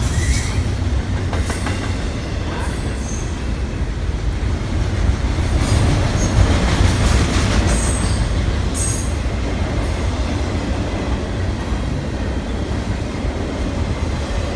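Double-stack intermodal freight cars of a BNSF train rolling past, a steady low rumble of steel wheels on the rails. A few brief high squeals from the wheels cut in at intervals.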